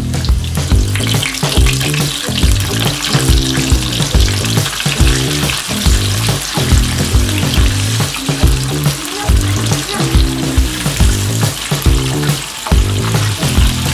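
Flour-dredged chicken pieces deep-frying in peanut oil at about 350°F: a dense, steady sizzle of bubbling oil. Background music with a steady beat plays underneath.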